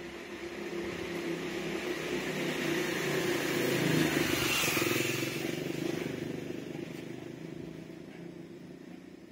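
A motor vehicle passing by unseen, growing louder to a peak about four to five seconds in and then fading away.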